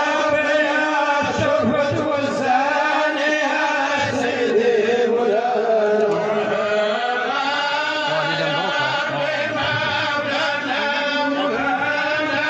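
Men's voices chanting Sufi dhikr, long drawn-out melodic notes that rise and fall slowly.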